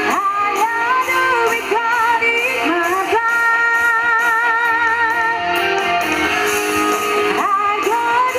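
Live band music from a stage performance: a sustained lead melody with vibrato and quick upward pitch glides over the accompaniment.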